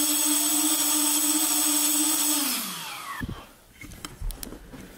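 The fan motor of a tip-jet model helicopter runs with a steady high whine while the rotor spins. About two and a half seconds in it is cut and winds down, falling in pitch and fading, after running a little too fast. A few light knocks follow as the rotor slows.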